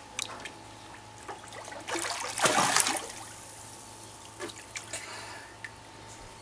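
Water splashing and lapping as a child moves through a small pool, with a louder splash lasting about a second, some two seconds in, and small drips and slaps after it.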